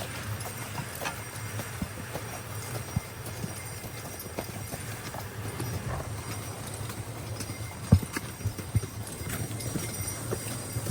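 Hoofbeats of two harnessed Clydesdale draft horses pulling a sleigh: a continuous run of soft, irregular hoof strikes over a steady low rumble, with one sharper knock about eight seconds in.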